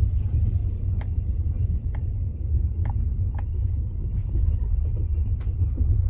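Steady low rumble of a passenger train carriage in motion, heard from inside, with a few faint sharp clicks scattered through it.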